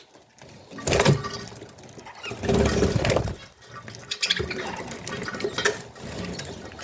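Pet budgerigars chattering and chirping, with two louder bursts of noisy sound about one and three seconds in.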